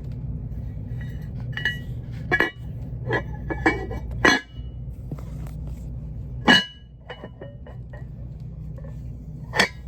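Decorative dishware, such as a candy bowl, clinking and knocking as the pieces are handled and set down: about six sharp clinks with a brief ring, the loudest about four and six and a half seconds in, over a steady low hum.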